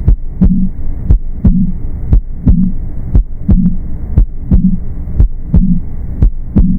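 Recorded heart sounds with a murmur: sharp valve-closure clicks repeat at about one beat a second, with a hissing murmur and a low rumble in each cycle between them.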